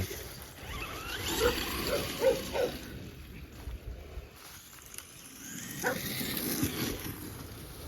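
Dogs barking: a run of short barks about one and a half to nearly three seconds in, and another bark near six seconds.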